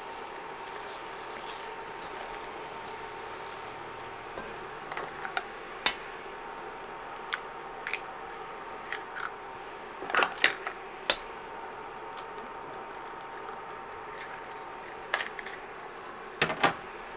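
Eggs cracked against the rim of an enamelled cast-iron pot: several sharp taps and cracks, with a cluster about ten seconds in, over a steady hiss of rice and vegetables frying.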